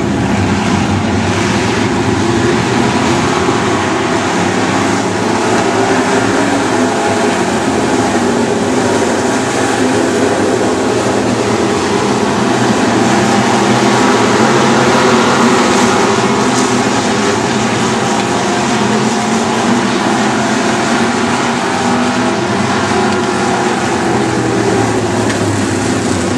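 Super Stock race cars' engines running on a dirt oval, a dense din of several engines at once that swells to its loudest about halfway through.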